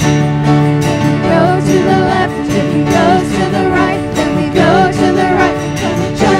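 Live worship band playing an upbeat song: several voices singing together over acoustic guitar and keyboard.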